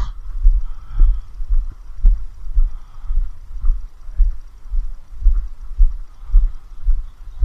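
Footsteps walking along a tarmac path, heard as deep thuds about two a second.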